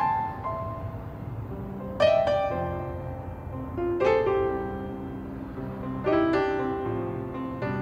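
Background piano music: slow, soft chords struck about every two seconds and left to ring out.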